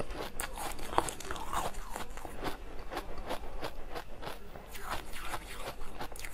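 Chewing a mouthful of frozen ice pop: irregular crisp cracks and crunches as the ice breaks between the teeth, the sharpest about a second in.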